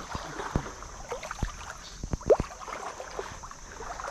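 Small waves lapping and splashing in shallow water among mangrove roots, with scattered light knocks and one short rising chirp a little past two seconds in.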